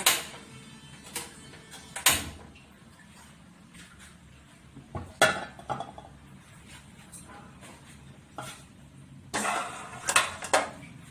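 Metal cookware clanking: sharp knocks and clinks of pots and utensils, a few scattered through and a busier clatter near the end.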